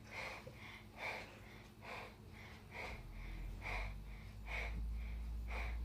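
A person breathing heavily and quickly, about seven loud breaths a little under a second apart, done as the cue for a service dog to perform deep pressure therapy. A low rumble comes in about halfway through.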